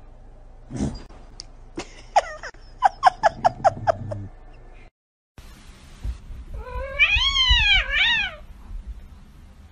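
Domestic cat vocalising: a quick run of short meows, about six in a second, then a long wavering meow that rises and falls in pitch.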